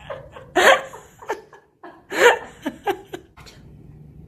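Laughing in two main bursts about a second and a half apart, with a few short vocal sounds between them.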